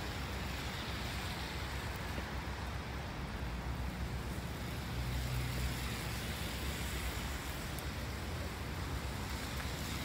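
Steady low rumble and hiss as a SEPTA Regional Rail electric commuter train approaches far down the line, with a brief low hum swelling about five seconds in.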